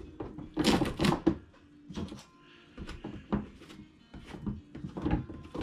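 Hard plastic knocking and clicking as roof rails are pulled off a plastic RC truck body, a run of separate knocks, loudest about a second in.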